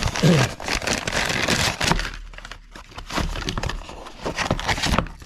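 Paper packing material and catalogs being rustled and crinkled by hand, a continuous crackle of many small clicks.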